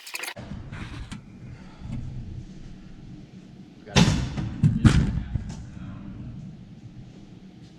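Two heavy thuds about a second apart, over a low steady rumble.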